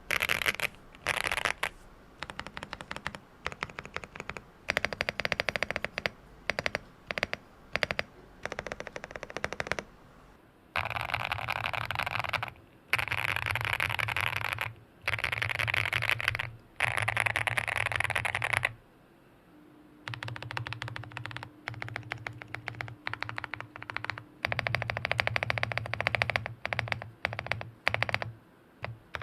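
QK65 mechanical keyboard with Boba U4T tactile switches on a POM plate, typed on a bare desk: keys are mashed rapidly in bursts of dense clacking, with short pauses and separate modifier-key presses between. The switches are stock at first, then lubed with Krytox 205g0 from about ten seconds in.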